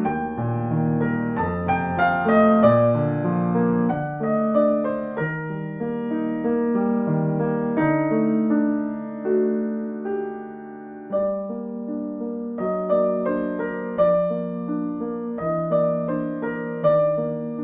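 Slow, gentle solo piano music: single melody notes over sustained chords, each note struck and left to ring.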